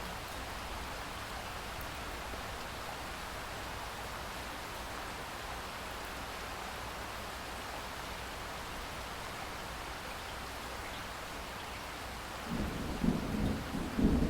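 Steady, even rain hiss, joined near the end by a low rumble of thunder that swells louder.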